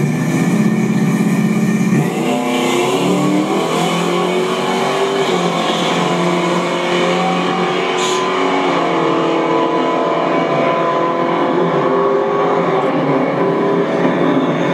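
Drag-racing car engines running at full throttle down the strip, the engine note changing pitch several times as they accelerate.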